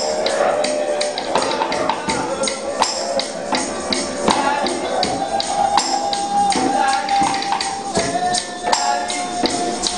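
Music with a tambourine's jingles struck in a quick, busy rhythm under a melody line, which holds one long note through the second half.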